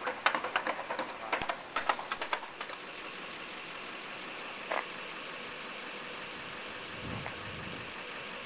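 Rapid, irregular light tapping and clicking for the first two and a half seconds, then a steady hum with a single click near the middle.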